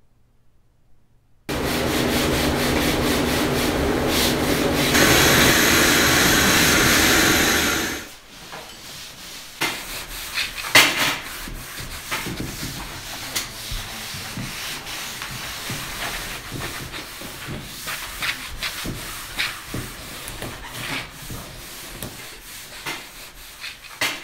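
A vacuum cleaner runs loudly and steadily for about six seconds, then cuts off suddenly. After that a cloth rag is wiped over the wooden cedar-strip canoe hull: a soft, uneven rubbing with scattered light knocks.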